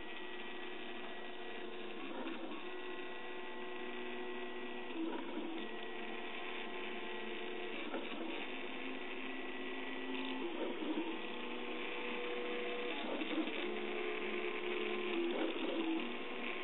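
A RepRap Huxley 3D printer at work: its stepper motors sing in steady tones that shift to new pitches every second or two as the print head changes moves, with a faint click at each change.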